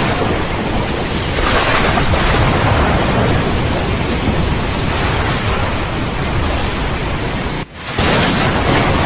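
Steady heavy rain with a low rolling rumble of thunder. Near the end the sound cuts out for a moment, then resumes.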